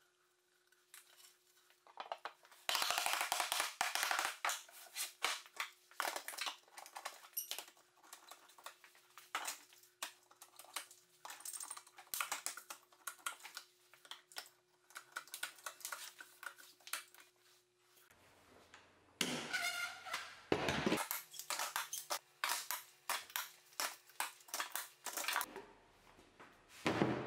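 One-handed bar clamps being slid along their steel bars and squeezed tight around an MDF box: a long run of quick clicks, rattles and clatters from the triggers, jaws and bars against the board. A faint steady hum runs underneath and stops about two-thirds of the way in.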